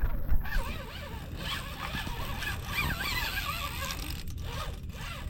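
Fishing reel drag buzzing as a big sturgeon strips line off the reel, its pitch rising and falling with the fish's pull. A knock just before it starts.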